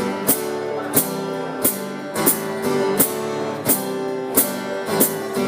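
Acoustic guitar strummed in a steady rhythm, about three strokes every two seconds, with the chords ringing between strokes and no singing.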